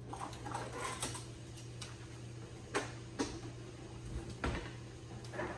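Irregular light clicks and knocks as kitchen utensils are rummaged through in a drawer, over a steady low hum.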